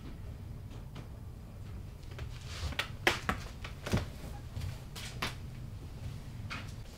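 Several sharp knocks and clicks of household handling over a low room hum, the loudest about three seconds in.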